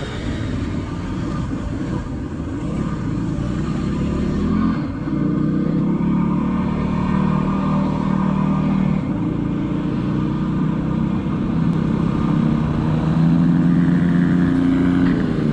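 Dirt bike engine running steadily near idle, its pitch stepping up slightly about five seconds in and again near the end.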